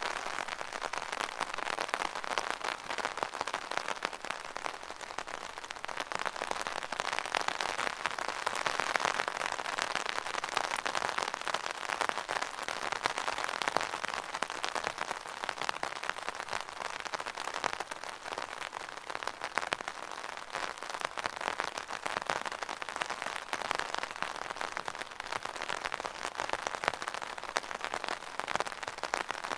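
Rain pattering on an umbrella's fabric canopy: a dense, steady patter of drops with gentle swells in strength.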